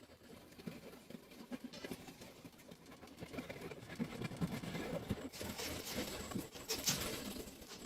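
Irregular rustling and crackling handling noises, many small clicks that grow busier and louder about halfway through, with a hissy rustle over the later seconds.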